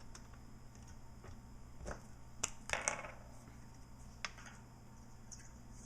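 A few light, scattered clicks and taps from handling the marker, tubing and tools, over a steady low hum.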